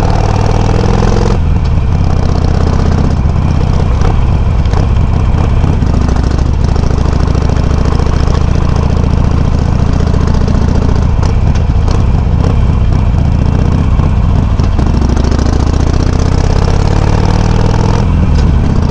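Harley-Davidson Sportster 883's air-cooled V-twin running through Customer slip-on exhaust tips with low baffles, recorded close by a mic on the bike while riding. Its note steps up and down several times as the throttle is worked.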